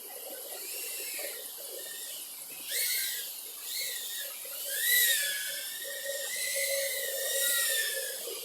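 EMAX TinyHawk S micro FPV drone's brushless motors and propellers whining, the pitch gliding up and down as the throttle changes.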